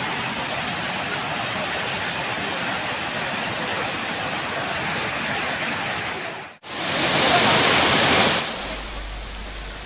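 Flash-flood water rushing in a torrent across a road below a waterfall: a steady, loud rush of water. About two-thirds of the way through it cuts out for an instant, comes back louder, then drops lower near the end.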